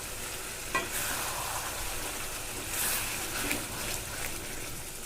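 Chicken with tomato, chilli and ginger-garlic paste sizzling in a frying pan. A utensil scrapes or stirs it a few times.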